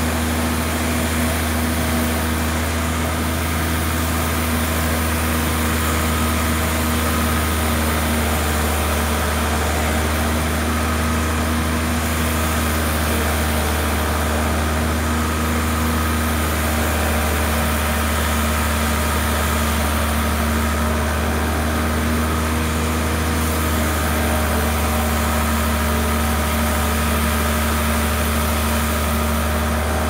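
Sawmill machinery running steadily: a constant low hum with a few fainter higher tones that come and go.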